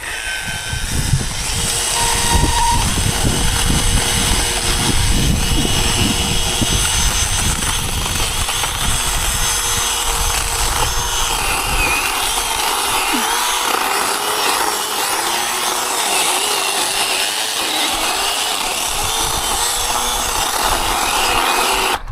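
Gasoline chainsaw running at full throttle, cutting through a small tree trunk. About halfway through, the heavy low thudding drops away and the engine pitch wavers up and down.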